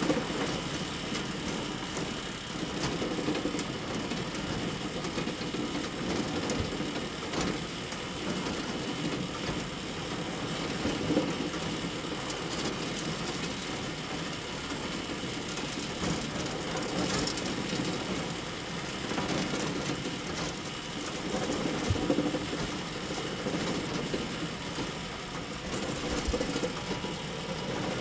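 Farm bale elevator running steadily: a continuous mechanical rattle and hum with scattered clicks and knocks.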